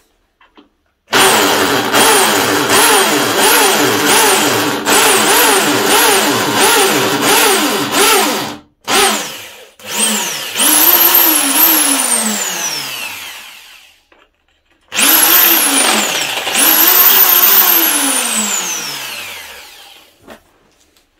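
Einhell TC-ID 720/1 E 720-watt impact drill boring into concrete with the largest bit of its kit. The motor runs under load for about seven seconds, its pitch dipping about twice a second, then in several shorter bursts, each ending in a falling whine as the motor winds down after the trigger is released.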